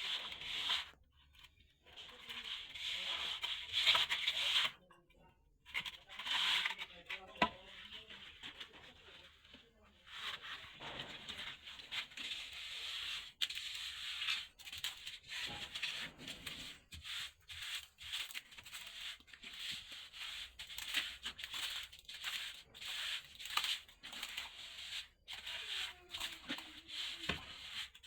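Plastering tool scraping and rubbing across a plastered wall in quick repeated strokes, about two a second.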